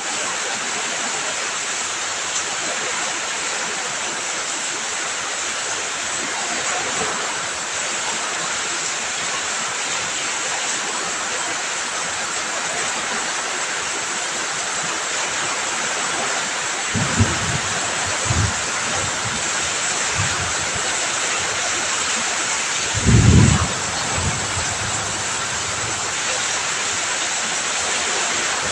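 Heavy rain falling steadily, a dense even hiss. A few brief low thumps come in the later part, the strongest about four-fifths of the way through.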